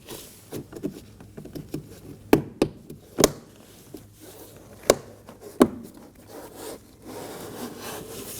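Plastic interior trim pieces being handled and pressed into a car door panel: rubbing and scraping of plastic, with about five sharp clicks as they are pushed home.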